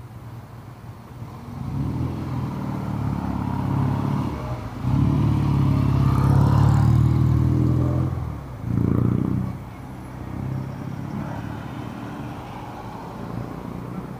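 Low engine rumble of road traffic passing close by. It builds, is loudest for about three seconds midway, dips, then swells again briefly before fading.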